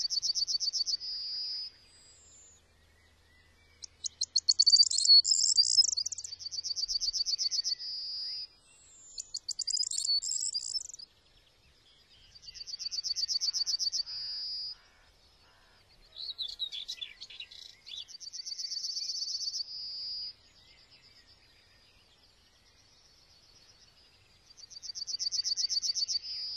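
A small songbird singing repeated short, high-pitched songs every few seconds, each a quick stutter of notes running into a buzzy trill.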